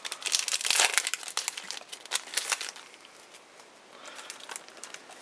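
Trading-card booster pack wrapper crinkling as it is handled and torn open, loudest in the first two and a half seconds and then dying down to light rustling.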